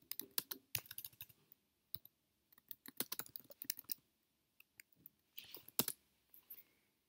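Typing on a computer keyboard: quick key clicks in short runs, with brief pauses between them, thinning to a few taps near the end.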